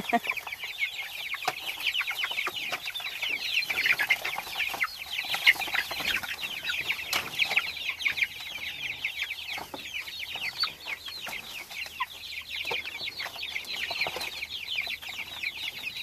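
A flock of young meat chickens peeping continuously, many short, high calls overlapping, as they feed on sprouted grass.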